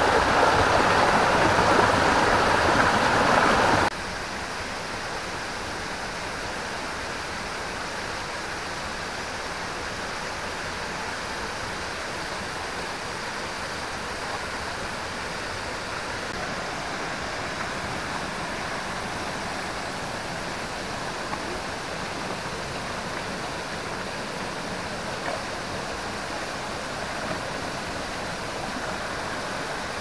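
Rushing water from a waterfall cascade. It is loud for about the first four seconds, then cuts suddenly to a steady, quieter rush of waterfall and stream water.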